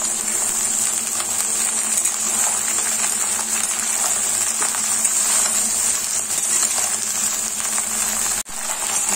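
Okra and sliced onions frying in hot mustard oil in a steel kadai: a steady sizzle with fine crackle, as the vegetables are turned with a spatula. The sound drops out for an instant near the end.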